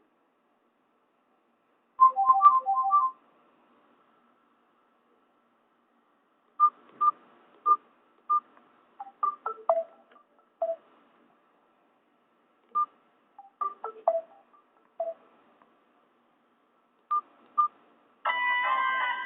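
Nokia E72 ringtones playing from a Nokia 216 phone's speaker: a quick phrase of short electronic notes about two seconds in, then sparse single notes and short runs with gaps between them. Near the end a fuller, chord-like tune starts.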